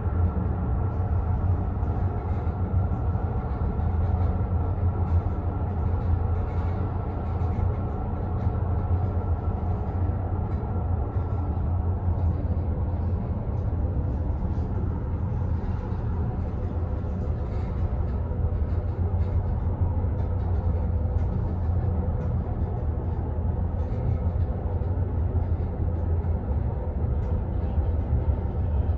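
Outdoor passenger lift cabin climbing its shaft, heard from inside the cabin: a steady low hum and rumble from the lift running, with a few faint steady tones above it.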